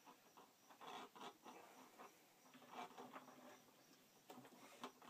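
Faint, scattered scraping and small clicks of electrical cable being pushed and worked through a tight hole in a wall.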